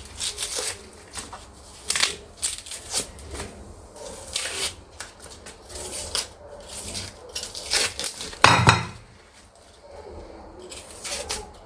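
A brown onion being peeled by hand: its dry, papery skin crackling and tearing in many short bursts, with small clicks and one louder knock about eight and a half seconds in.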